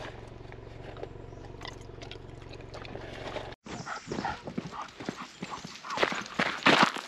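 Footsteps crunching on a gravel path, an uneven run of steps that grows louder toward the end. Before them, a steady low hum inside the car, which cuts off abruptly a little past the halfway point.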